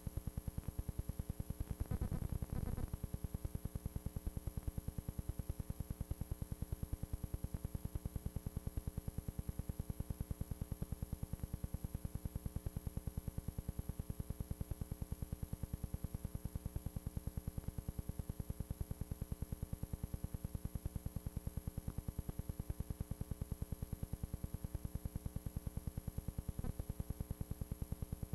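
Steady electrical hum and buzz on an old videotape soundtrack, a rapid even pulsing that does not change, with a brief louder patch about two seconds in.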